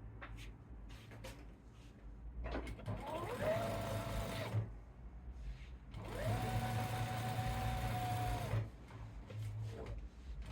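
Electric sewing machine running in two bursts of stitching, each a couple of seconds long. The motor whine rises quickly to a steady pitch and then stops.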